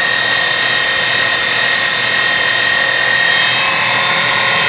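Angle grinder's electric motor, rigged as a homemade outboard, whining steadily while it drives the boat along.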